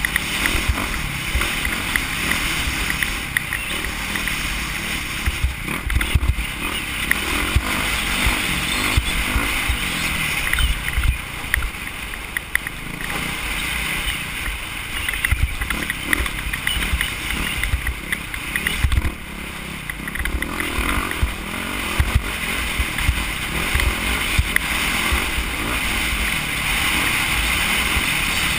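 Off-road motorcycle engine running at speed, mixed with rough wind buffeting on the microphone. Frequent irregular knocks come from the bike hitting bumps in the trail.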